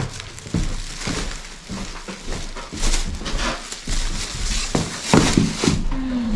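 Irregular rustling, scuffing and light bumps of belongings being handled and carried.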